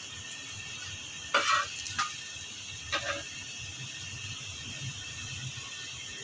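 Paratha frying in oil on a hot pan, a steady sizzle, with a few short louder knocks or scrapes about a second and a half in and again around three seconds.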